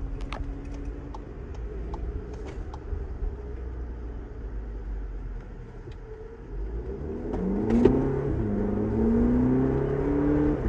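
2022 VW Polo GTI's 2.0-litre turbocharged four-cylinder engine heard from inside the cabin, running quietly at low speed, then pulling hard under full throttle from about six and a half seconds in. The revs climb, drop back briefly and climb again about three times as the DSG gearbox shifts up, with one sharp click near the first shift.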